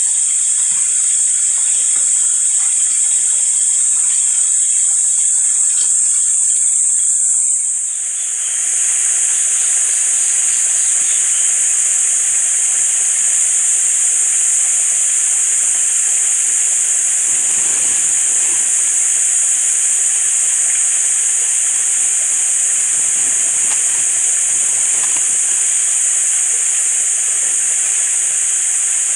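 Steady, loud, high-pitched hiss of outdoor ambience with no speech; its texture changes slightly about eight seconds in.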